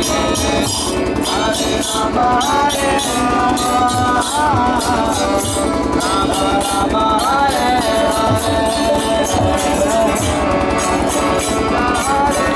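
Group of men singing a devotional kirtan chant together, with hand cymbals keeping a steady ringing beat under the voices.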